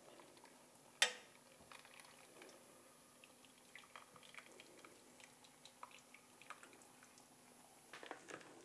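Faint dripping and small clinks as a whole boiled chicken is lifted out of its broth with a metal ladle and spatula, with one sharper knock about a second in.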